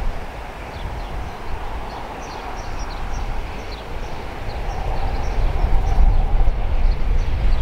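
Network Rail's New Measurement Train, a High Speed Train led by a Class 43 power car, approaching with a low rumble that grows steadily louder over the last few seconds. Small birds chirp briefly and repeatedly over it.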